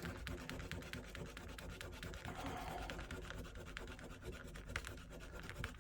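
A small hand file scratching quickly back and forth on an action figure's hard plastic, rubbing down a raised emblem so it sits flat.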